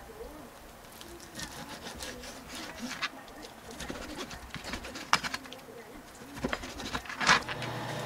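Chef's knife slicing raw chicken breast on a plastic cutting board: scattered knocks of the blade against the board, the loudest one near the end.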